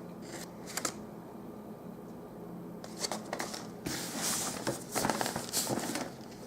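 Rustling and light clicking of small items being handled while rummaging through a box of camcorder accessories: plastic tape cases and battery packs. The handling noise is sparse at first and comes in busier clusters from about three seconds in, over a faint steady hum.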